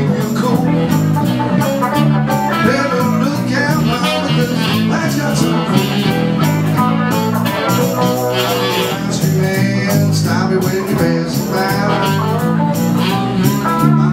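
Live dance band playing, with electric guitar over bass and drums and a steady beat.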